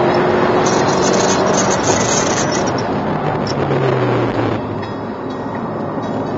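In-cabin sound of a Mercedes-AMG C63 S, its twin-turbo V8 running hard with heavy wind and road noise at track speed, a high rattle from the dash camera's mount over it. About four and a half seconds in the engine note falls and the noise drops as the car slows for a corner.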